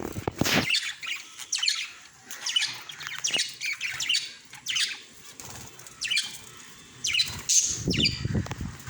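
Small pet parrots chirping and squawking in a run of short, sharp calls, with a low fluttering rustle near the start and again near the end.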